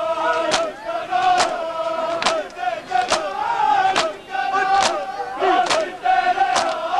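Crowd of men beating their chests in unison in matam, a sharp slap about every second, over loud chanting men's voices.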